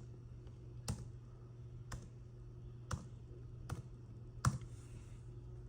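Laptop keys pressed one at a time: five separate clicks about a second apart, the last the loudest, over a low steady hum.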